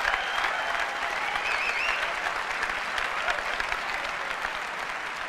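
Large audience applauding, slowly dying down.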